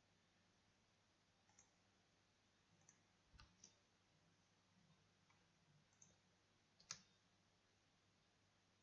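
Near silence with about six faint computer mouse clicks, spaced irregularly, the loudest about seven seconds in.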